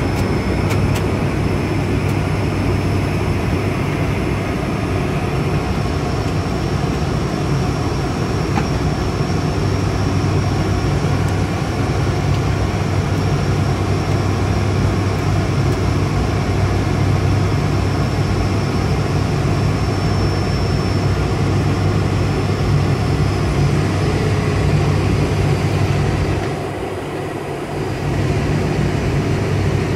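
ATR 72-600 cockpit on descent for landing: the Pratt & Whitney PW127 turboprop engines and propellers make a steady drone with a thin high whine over it. The sound dips in level for about a second and a half near the end.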